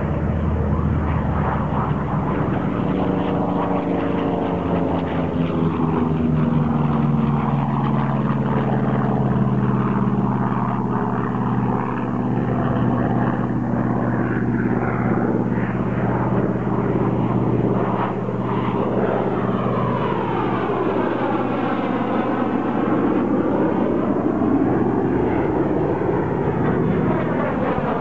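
Piston-engined propeller warbird flying past, a steady engine drone whose pitch slowly drops. In the second half the sound sweeps and phases as the aircraft passes overhead.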